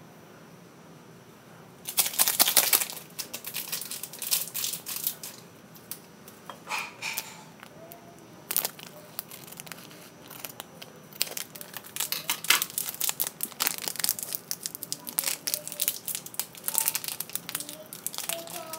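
Small foil seasoning sachets from an instant pancit canton pack crinkling and crackling in the fingers as they are handled and opened, in irregular bursts starting about two seconds in.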